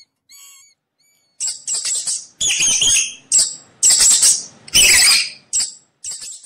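Mouse squeaking: a run of about eight shrill, harsh squeals of uneven length, beginning about a second and a half in, the loudest about three-quarters of the way through.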